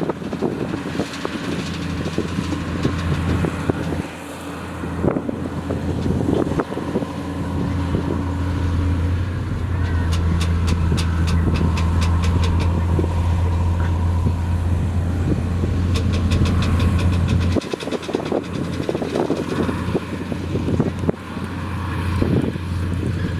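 Heavy diesel engine of earthmoving equipment working under load. It grows louder about a third of the way in and drops back suddenly near the end, with a fast clattering rattle over the louder stretch.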